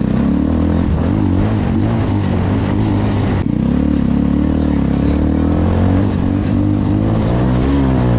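Bajaj Pulsar 220's single-cylinder engine running under load while riding, its pitch rising and falling with the throttle. There is a brief throttle lift about three and a half seconds in, and the revs climb near the end.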